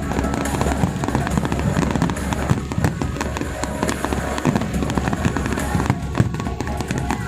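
Aerial fireworks display going off continuously, a dense run of bangs and crackles, with music and crowd voices mixed in.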